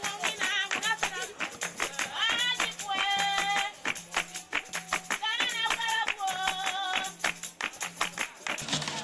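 Music: high voices singing short phrases with held, wavering notes, repeated every second or two over a fast, steady beat of hand percussion and rattles.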